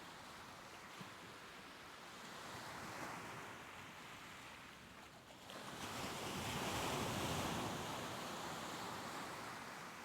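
Soft ocean waves washing ashore: a gentle swell of surf noise, then a larger wave building about halfway through, breaking and fading away.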